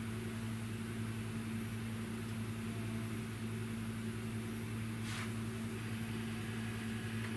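Steady low electrical hum with a faint hiss, and a brief soft noise about five seconds in.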